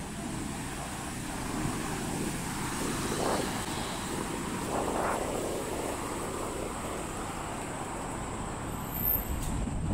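Outdoor city ambience: a steady low rumble of distant traffic, with two faint swells about three and five seconds in.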